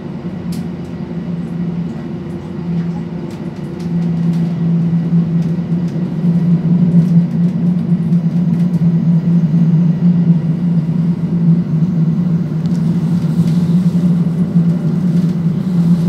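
Inside a Stadler Regio-Shuttle diesel railcar under way: the steady drone of its underfloor diesel engines and running gear, which grows louder about 4 seconds in and again about 6 seconds in, with faint light clicks over it.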